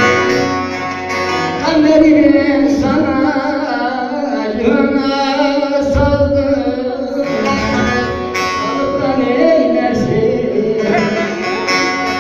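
Bağlama (long-necked Turkish lute) played with a voice singing over it, the devotional music (deyiş) of an Alevi cem.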